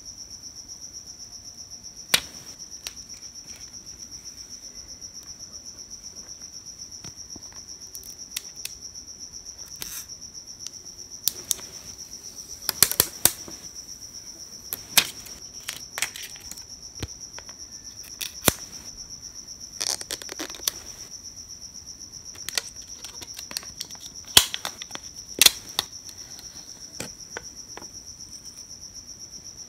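A cricket chirping steadily: one high tone pulsing rapidly and evenly throughout. Over it come scattered sharp clicks and short rustles of trading cards being handled and their foil covers peeled off.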